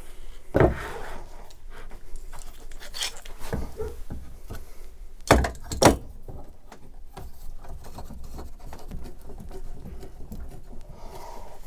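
Two wooden boards being handled and clamped together on a workbench: wood knocking and a hand clamp's parts clicking and rubbing, with a few sharper knocks, the loudest two about half a second apart near the middle.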